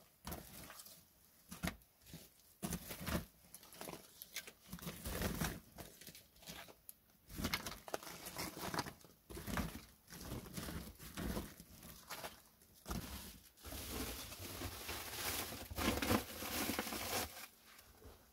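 Dry wood chips and splinters rustling and clattering as they are gathered by hand from a woodpile, with a plastic sack crinkling, in irregular bursts and a longer stretch of rustling near the end.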